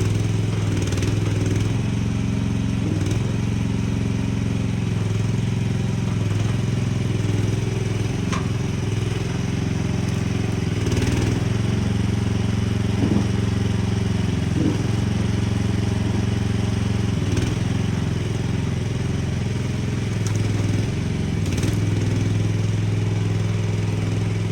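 Mini skid steer's engine running at a steady speed, with a few light knocks and clatter over it.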